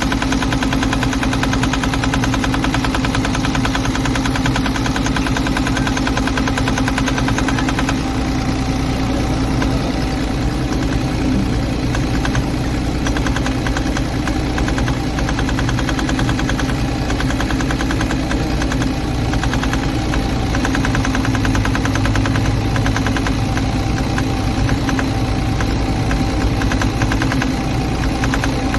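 Volvo EC210 excavator's diesel engine running steadily with a rapid, even knock, its note shifting slightly about eight seconds in. The mechanic blames a faulty injector nozzle for the engine's heavy black smoke.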